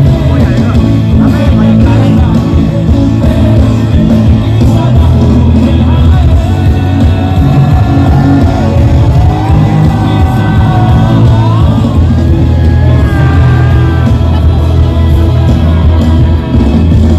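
Loud live band music through a concert sound system, with heavy bass and a melodic line sliding up and down in pitch in the middle of the passage.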